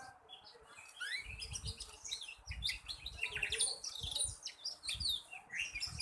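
Young black-red canary singing a rapid run of short chirps and quick upward-sweeping notes: a juvenile practising its 'ngeriwik' chatter. Low thuds sound underneath at intervals.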